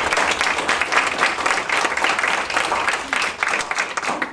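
A roomful of people applauding, the clapping thinning out and fading near the end.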